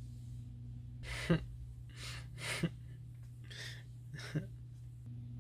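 A person taking about five short, breathy gasping breaths, roughly one a second, each ending in a brief catch in the throat, over a steady low hum.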